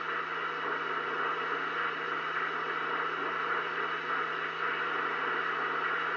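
CB radio receiver hissing with steady band static on 27.005 MHz (FCC CB channel 4), with an open channel and no station coming through. A steady low hum runs under the hiss.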